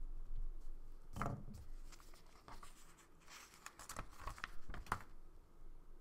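A pen set down on a paper planner page with a soft knock about a second in, then a sticker sheet handled and a sticker peeled off its backing: a run of crinkling with small sharp crackles that stops about five seconds in.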